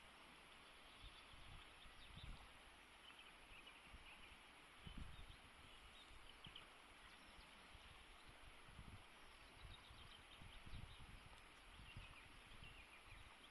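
Faint, steady rush of a fast-flowing river, with irregular low rumbles of wind on the microphone.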